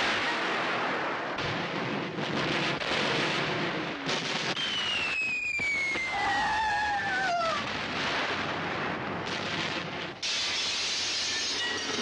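Film sound of a bombing raid: continuous explosions and rumbling, with the whistle of a falling bomb gliding down in pitch for about three seconds in the middle. About ten seconds in a sudden loud blast hits, as windows blow in and glass shatters.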